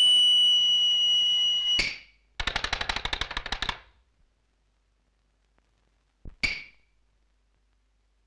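Cartoon sound effects: a high, steady ringing tone that cuts off with a sharp hit, then a fast rattle of clicks for about a second and a half, then two short knocks near the end.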